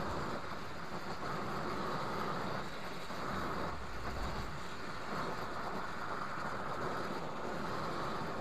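Oxy-acetylene torch flame burning steadily with an even rushing noise while brazing a cast iron plate with bronze rod.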